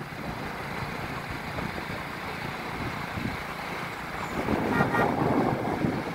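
Road noise from a vehicle travelling along a road, a steady rumble with passing traffic, and a brief vehicle horn beep about five seconds in.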